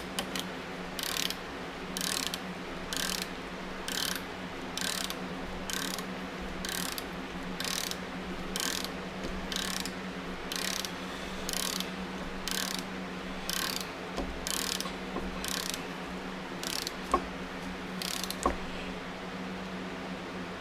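Hand ratchet wrench clicking in short runs, one back-swing about every second, as a bolt or nut is run down. Two sharp single clicks come near the end.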